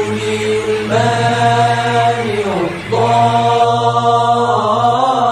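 Melodic vocal chanting in long held notes, with a swooping dip in pitch about two and a half seconds in before the next held note.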